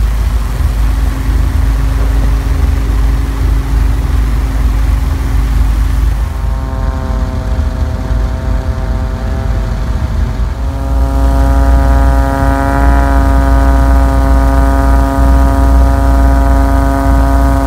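Propeller airplane engine in flight, heard as a loud steady drone over wind rush. About six seconds in, a higher pitched tone with many overtones joins it; it breaks off for a moment and comes back louder near the end.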